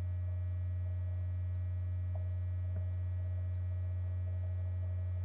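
Steady low electrical hum on the recording, unchanging throughout, with a faint higher steady tone over it.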